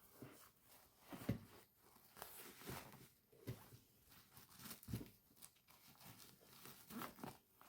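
Faint rustling of a thick, heavyweight fabric tunic being worked onto a doll, with scattered soft knocks and scrapes from handling the stiff doll.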